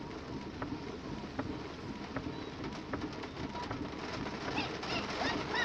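Steady low rumble of a car's interior with scattered faint ticks, and a few short high chirps near the end.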